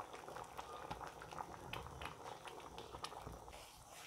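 Thick masoor dal with ridge gourd simmering in an open metal kadai: a soft bubbling with many small irregular pops as the bubbles burst.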